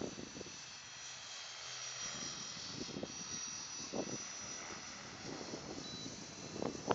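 Faint, steady drone of a small aircraft overhead, with a thin high whine, mixed with irregular rustles and bumps from the microphone being handled.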